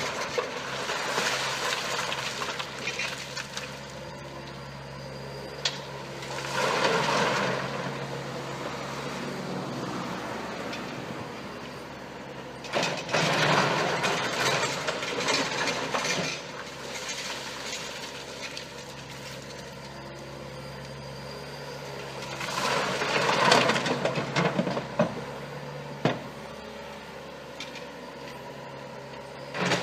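Mini excavator diesel engine running steadily, with louder rushing surges lasting one to three seconds, coming every several seconds.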